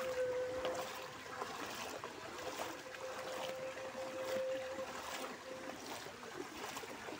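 Floodwater running across a road, with rain pattering in many small ticks. A steady thin hum comes and goes: it drops out about a second in and returns for a few seconds in the middle.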